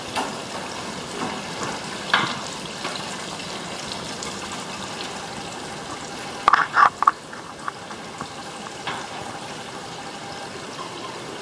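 Water being squeezed out of a post of wet handmade paper sheets in a 20-ton hydraulic shop press, trickling and spattering down steadily. A quick cluster of sharp clicks comes a little past halfway, from the press's bottle-jack pump handle being worked.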